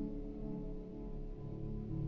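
Soft ambient background music of steady held tones, with a ringing, singing-bowl-like quality.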